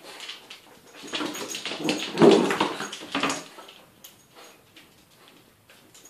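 A West Highland terrier making dog noises as she worries a plush toy: a dense run of sound from about a second in, loudest a little past two seconds, that dies away after three seconds into faint scattered clicks and scuffles.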